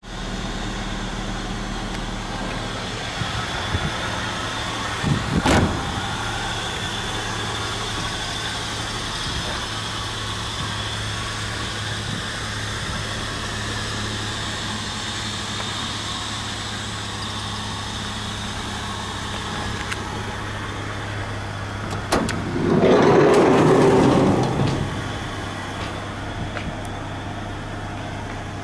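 Toyota Hiace van's 1RZ-E 2.0-litre four-cylinder petrol engine idling steadily. There is a short knock about five seconds in and a louder noise lasting a couple of seconds about three-quarters of the way through.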